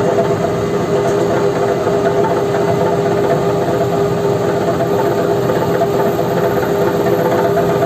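Diesel engine running steadily at an even speed, with no change in pitch.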